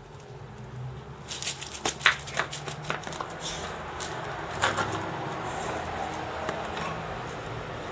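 A dog working at a coconut half on concrete: irregular clicks, knocks and scrapes of the shell for a few seconds, with a sharper knock about two seconds in and another near five seconds, then quieter.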